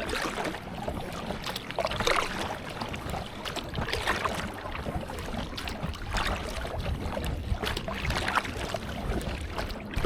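Kayak paddle strokes in choppy water, with a splash about every two seconds and small waves lapping against an inflatable kayak's hull, over a steady low rumble of wind on the microphone.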